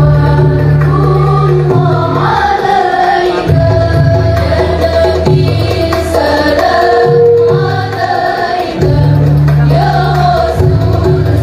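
A group singing an Arabic Islamic devotional song (sholawat) to music, over deep bass notes that change every second or two.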